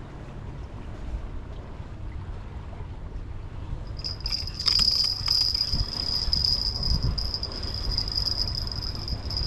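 An insect, cricket-like, starts a steady high-pitched trill about four seconds in, over a low rumble of wind and water. A few faint clicks come as the trill begins.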